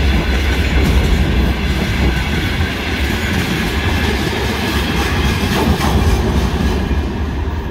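Freight train wagons, boxcars and tank cars, rolling past close by: a steady rumble of steel wheels on the rails with the clickety-clack of wheels over rail joints.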